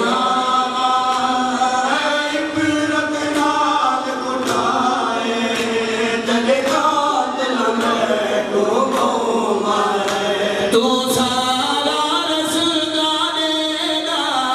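Men's voices chanting a noha (Shia lament) in long held lines over a microphone, with sharp slaps of matam, hand-beating on the chest, now and then.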